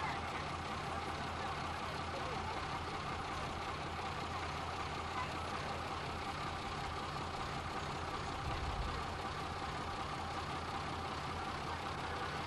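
Fire truck's engine running steadily to power its hydraulic aerial platform, with the basket raised on the boom, a constant low hum.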